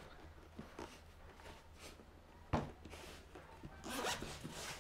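Quiet handling of a zippered drone carrying case, with one sharp click about halfway through. Near the end the zipper starts to rasp open.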